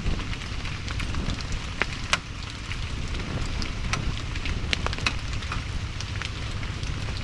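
Heavy rain falling steadily, with a low rumble and many scattered sharp pops and crackles.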